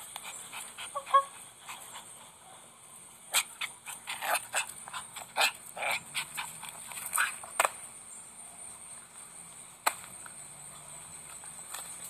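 Small white Pomeranian-type puppy giving short yips and little play noises while it mouths and lunges at a hand. There is a brief squeaky call about a second in, then a quick run of short, sharp yaps and scuffs in the middle, and one sharp click near the end.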